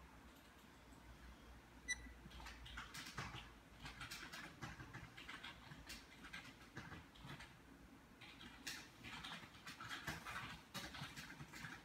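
Faint irregular rustling and scratching handling noise, with one short, sharp high click-beep about two seconds in.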